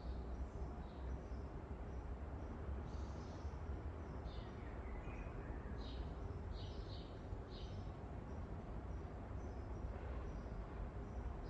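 Rural garden ambience: a steady low background rumble with scattered short, high bird chirps, several in quick succession near the middle.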